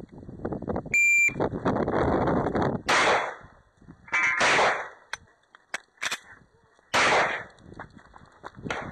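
An electronic shot-timer beep sounds briefly about a second in, starting the course of fire. A 9mm Glock 34 pistol then fires loud shots in several separate bursts, with sharp clicks in the gaps.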